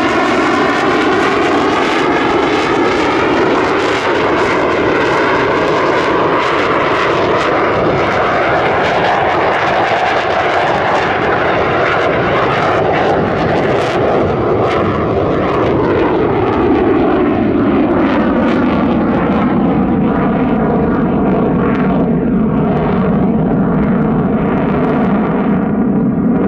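General Dynamics F-16AM Fighting Falcon's Pratt & Whitney F100 turbofan at high power, with afterburner lit, as the jet flies a display overhead: a loud, steady jet rumble with tones that sweep slowly up and down as it moves. The upper hiss dulls over the second half as the jet climbs and turns away.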